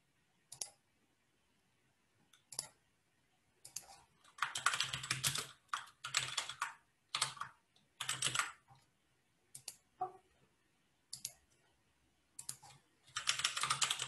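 Computer keyboard typing in several short bursts of rapid keystrokes, with separate single clicks in between.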